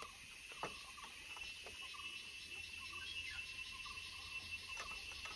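Steady chorus of insects chirping, with a few light clinks of metal spoons against bowls and glasses.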